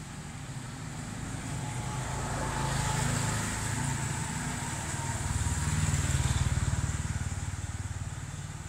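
Motor vehicles passing by, their engine noise swelling twice, the louder pass about six seconds in, then fading.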